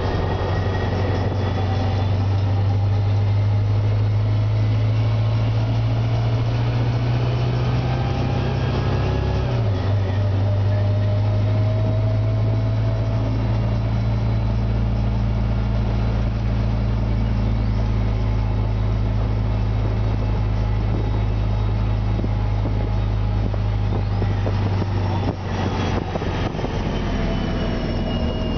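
Interior of a 2003 Orion VII CNG bus under way: the Detroit Diesel Series 50G four-cylinder natural-gas engine runs with a steady low drone, and the Voith DIWA 864.3 automatic transmission whines in gliding tones above it. About nine seconds in the engine note drops suddenly as the transmission shifts.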